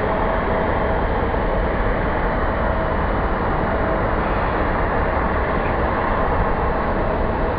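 Steady rushing wind and road noise of a moving vehicle picked up by a camcorder microphone, with a faint steady whine through the first half.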